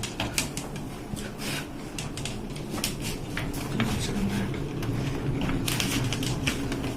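Irregular small clicks, taps and scrapes of hands handling and fitting a washing machine door lock and its screws, with faint voices murmuring underneath.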